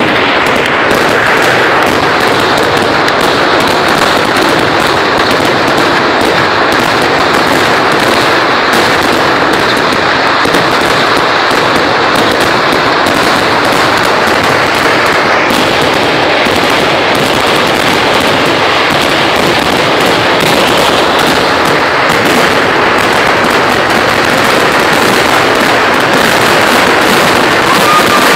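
Kerala festival fireworks (vedikkettu): a dense, unbroken barrage of firecracker explosions, the bangs coming so fast that they run together into one loud, continuous crackle.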